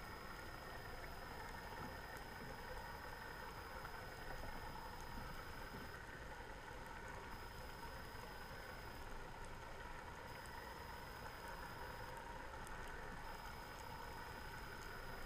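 Steady underwater ambient noise recorded through an underwater camera's housing: an even hiss with a faint steady high tone and scattered faint clicks.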